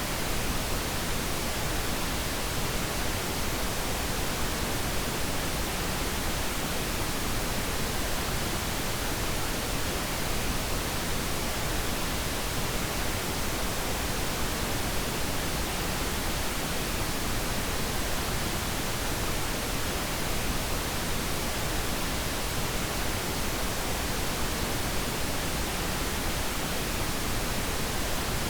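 Steady synthetic noise of the pink-noise kind, an even hiss spread across all pitches with no changes, played as a sleep-masking sound.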